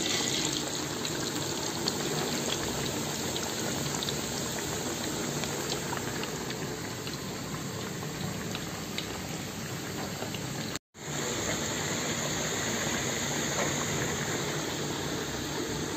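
Potato wedges deep-frying in hot oil, a steady bubbling sizzle, broken off for a moment about eleven seconds in.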